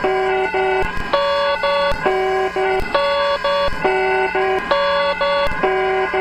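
Electronic EAS emergency alert alarm tone: a loud, repeating pattern of short beeping tones that alternates between a lower and a higher pitch group about once a second.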